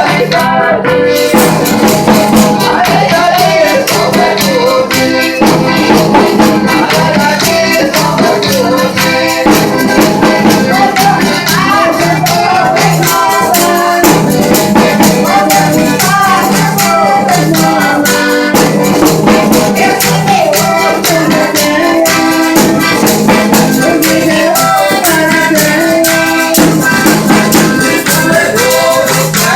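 Brazilian folia devotional folk music: voices singing over melody instruments, driven by a steady, rapid shaken-percussion rhythm like a tambourine.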